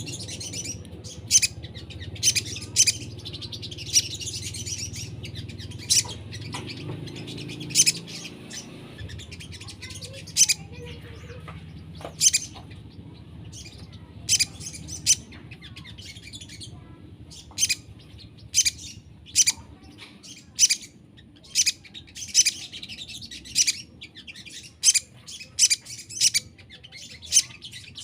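Crimson sunbird (sogon) calling: a run of short, sharp, high chips at irregular intervals, broken by brief spells of rapid twittering song.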